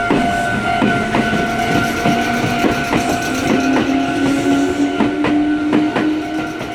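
Railway level-crossing alarm ringing steadily as a train passes, its wheels clacking over the rail joints at uneven intervals. A lower tone from the train rises in pitch through the middle.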